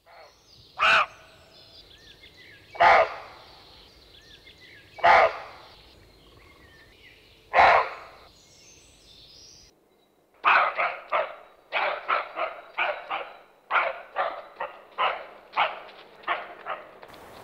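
A dog barking: four single barks about two seconds apart, then after a short pause a quicker run of barks, about two a second. Faint bird chirps sound behind the first barks.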